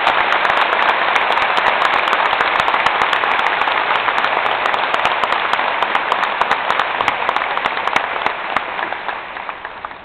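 A large crowd applauding: dense, steady clapping that tapers off near the end.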